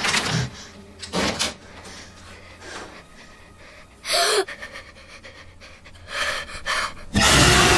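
Sound from a horror-film scene: a person gasping and breathing hard, with a short falling vocal cry about four seconds in. A loud, harsh burst of noise follows near the end.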